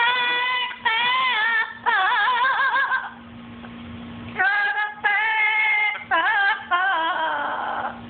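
Blue-fronted amazon parrot singing a melody in a high, wavering voice: several short phrases, a pause of about a second after three seconds, then more phrases.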